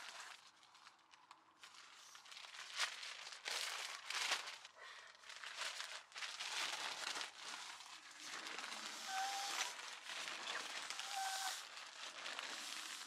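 Nylon sleeping bag, stuff sack and sleeping pad rustling and crinkling as they are unfolded, shaken out and unrolled, in uneven bursts.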